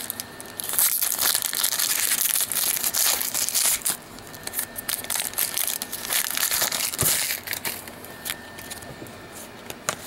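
A trading-card pack wrapper being torn open and crinkled by hand, loudest in the first few seconds and then dying down to scattered crackles as the cards are handled.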